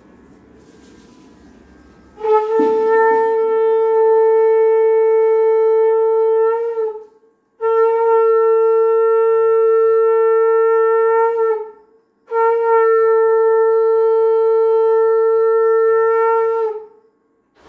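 Conch shell (shankha) blown three times, each a long, steady blast of about four to five seconds held on one note, with brief gaps between.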